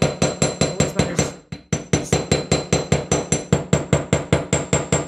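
Small jeweller's hammer striking wire cat-shaped frames on a steel bench block: quick, even blows at about four a second, each with a light metallic ring, with a short break about a second and a half in. The whole wire shape is being hammered flat.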